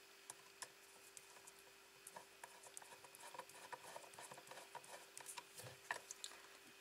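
Faint, irregular small clicks and scrapes of a screwdriver turning a small screw into the metal end cover of a power inverter, over a faint steady hum.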